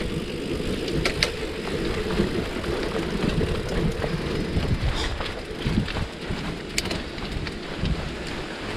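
Wind buffeting the microphone and tyre rumble from a bicycle rolling along a road, a steady low noise with a few sharp clicks or knocks.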